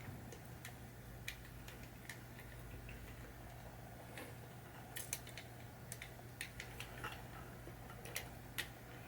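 Faint, irregular small clicks and ticks of screws being driven with a screwdriver into a pinball machine's drop target bracket assembly, the clicks coming more often in the second half, over a low steady hum.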